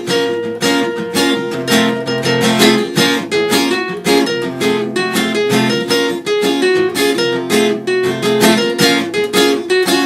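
Background music: fast, rhythmic strummed guitar with sharp percussive strokes.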